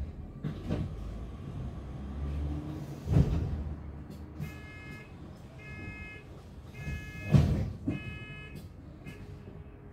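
Double-decker bus door warning beeping: four short beeps about a second apart over the low rumble of the bus, with two loud thuds.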